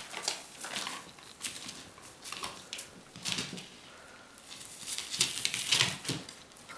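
Kittens scampering and pouncing on a feather wand toy: irregular light pattering, scuffing and rustling of small paws and feathers on a floor mat, busiest about five to six seconds in.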